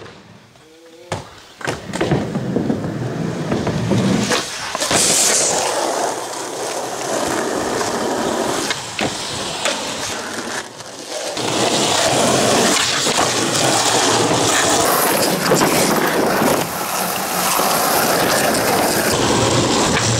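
Skateboard wheels rolling over rough asphalt, broken by several sharp clacks of the board popping and landing.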